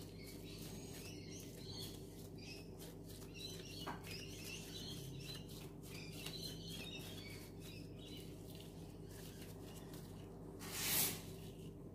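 Faint squish and rustle of plastic-gloved hands rolling minced-beef kofta mixture into a ball, over a steady low hum, with small faint chirps and clicks. A louder rustle comes about a second before the end.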